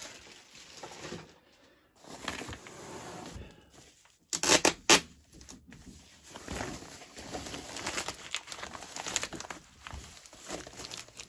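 Clear plastic bag and foam packing sheet rustling and crinkling as hands pull them off a machine, with a cluster of sharper, louder crackles about four seconds in.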